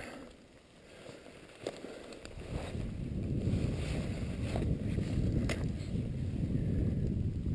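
A hiker's footsteps and the brush scraping as he picks his way down a steep, dry, brushy slope with a trekking pole, heard as a low rumbling rustle on a body-worn microphone. A few sharp clicks stand out, about a second apart.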